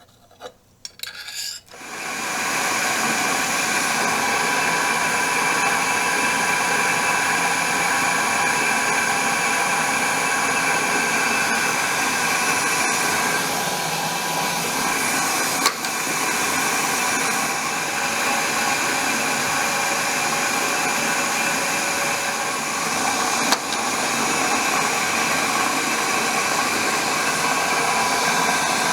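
Electric drill starting about two seconds in and running steadily, drilling pin holes through metal parts clamped in a vise, with two brief clicks partway through.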